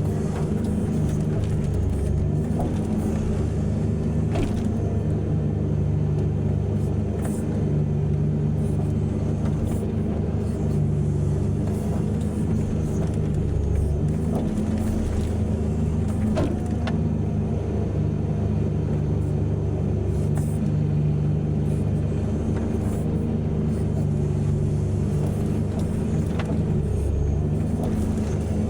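Heavy diesel engines of a mining excavator and haul truck running steadily under load, with a few faint sharp knocks scattered through.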